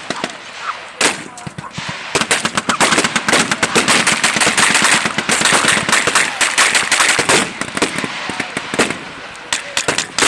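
Machine guns and rifles firing blanks in a staged battle: scattered shots at first, then long, rapid bursts of automatic fire through the middle, easing off near the end before picking up again.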